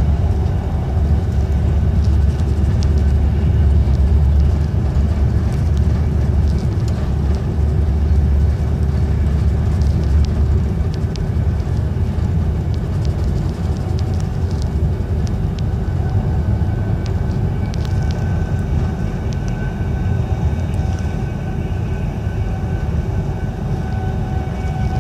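Passenger train running at speed, heard from inside the carriage: a steady, heavy low rumble of wheels on track, with a faint thin whine joining about two-thirds of the way in.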